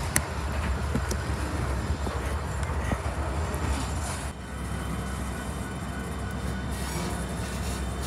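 A freight train's covered hopper cars rolling slowly past on steel wheels, with a steady rumble and a few light clicks and knocks from the running gear. About four seconds in the sound changes to a quieter, steadier low rumble.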